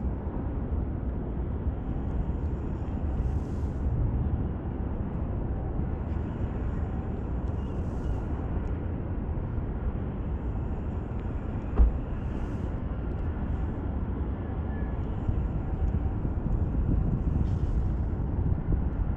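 Steady low rumble of outdoor background noise, with one dull thump about twelve seconds in.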